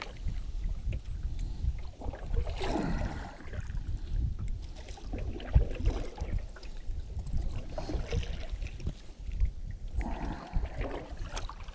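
Wind rumbling on the microphone, with light knocks of handling in the canoe and one sharper knock about five and a half seconds in.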